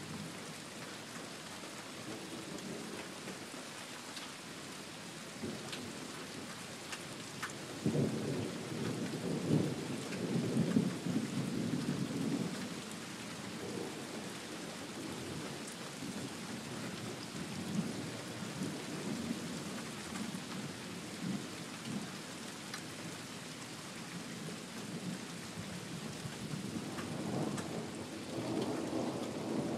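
Thunderstorm: steady rain falling, with a rumble of thunder swelling about eight seconds in and lasting several seconds, and another rumble building near the end.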